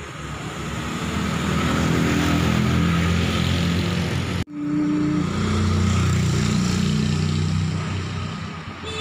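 Road vehicle engine running close by on the street, growing louder over the first two seconds and then holding steady, with a brief sudden dropout about four and a half seconds in.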